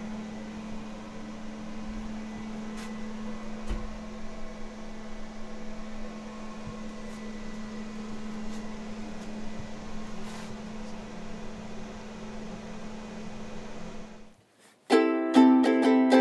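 Steady low hum with a faint hiss: room tone inside a small room. It cuts off about fourteen seconds in, and after a brief gap plucked-string music starts near the end.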